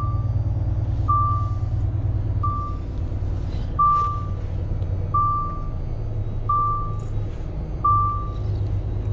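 Electronic warning beeper sounding one short, high, steady tone about every 1.3 seconds, like a vehicle's reversing alarm, over the steady low hum of a truck engine running at low speed.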